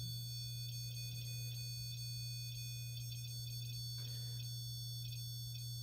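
Steady low electrical hum with several faint, constant high-pitched whining tones over it.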